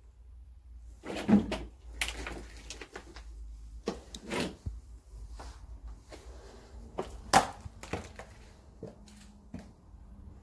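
Footsteps crunching and knocking over fallen plaster and debris on a hard floor, an irregular run of steps with two louder crunches, about a second in and past the middle.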